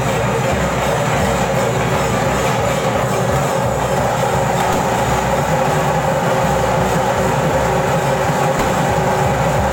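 Loud, continuous traditional ritual band music, a dense mix of rapid drumming and steady held pipe tones, playing without a break.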